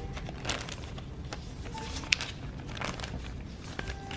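A glossy paper bag crinkling and rustling as it is handled, in short irregular rustles with one sharp click about two seconds in.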